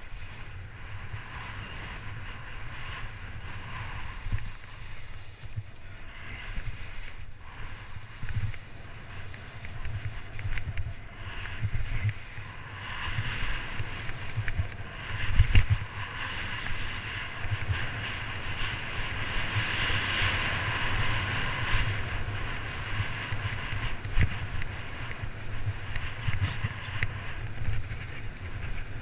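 Nordica Helldorado skis scraping and chattering fast over suncupped glacier snow, with wind rushing over the microphone; one heavier thump about halfway through.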